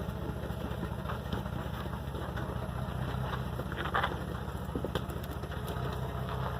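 An off-road vehicle's engine running steadily at low revs, with a brief higher-pitched noise about four seconds in.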